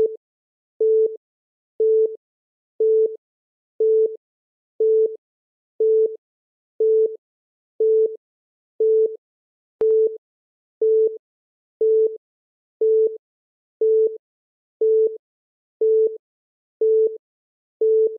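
Countdown timer beeping once a second: short electronic beeps on a single steady pitch at an even pace, counting down the final seconds toward zero.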